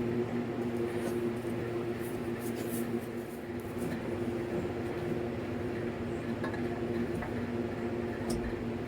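A motor or small engine running steadily in the background: an even, low hum with a few faint clicks over it.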